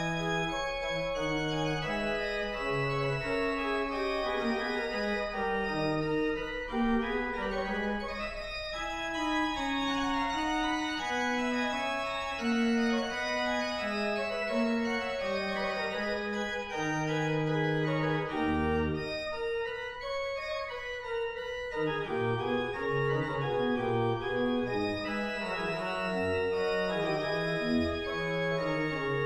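Organ playing slow music of held chords, with several lines moving at once over a low bass line.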